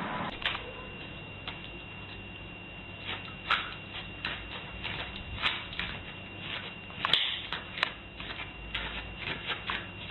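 Irregular light clicks and taps, roughly one to three a second, over a faint steady high-pitched tone.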